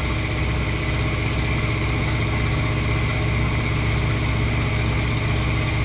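Steady drone of a jump aircraft's engines heard from inside the cabin, holding an even pitch and level throughout.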